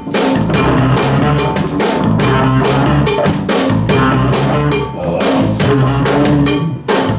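Band playing rock music: a drum kit keeping a steady beat, with bass and guitar underneath, starting right after a spoken count-in.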